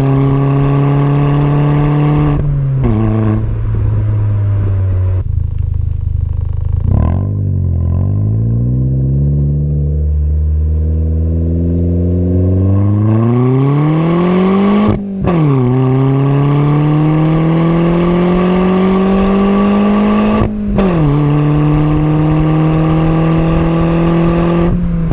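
Ford Fiesta Zetec S with a custom aftermarket exhaust, driving: the engine note sinks as the car slows, then rises steadily under acceleration, dropping sharply at each upshift, and settles at steady cruising revs near the end.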